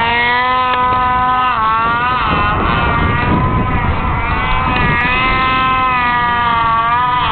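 Snowmobile engine running hard at high revs, a steady whine whose pitch dips briefly about one and a half to two and a half seconds in, climbs back, and dips again near the end.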